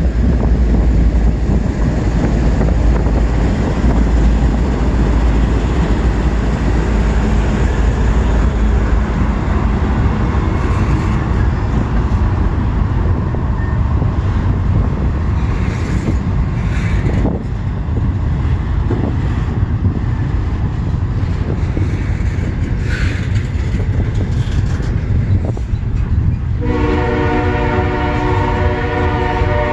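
CSX diesel locomotives rumbling past slowly at close range, then double-stack intermodal cars rolling by with a steady rumble and a few brief sharp squeaks. About 27 seconds in, the locomotive's multi-chime air horn sounds and holds.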